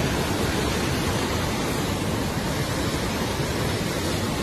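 Fast-flowing muddy floodwater rushing past in a steady, unbroken rush of water.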